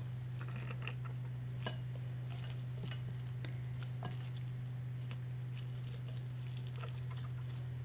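Soft wet squishing and scattered faint ticks of oil-coated sun-dried tomatoes being pressed down by hand into a glass jar, over a steady low hum.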